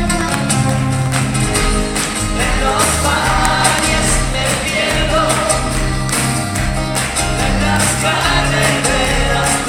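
Live band music from a concert, with singing over a steady, sustained bass line.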